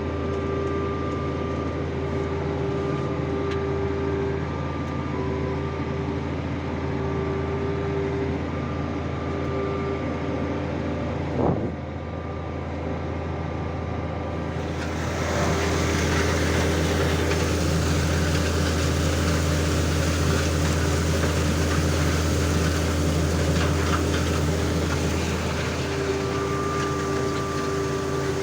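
Tractor engine running steadily at low speed while flattening tall napier grass, with a single sharp knock about 11 seconds in. From about 15 seconds a louder rushing, crackling noise joins in, then eases off near the end.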